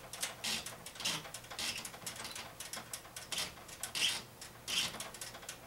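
Hands pushing soft plastic water-cooling tubing onto a barb fitting: a string of short, irregular scuffs and rubs of tube on fitting.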